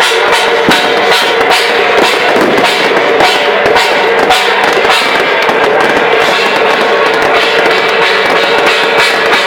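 Loud festival drumming, with a rapid, even run of struck beats over a dense, steady clatter.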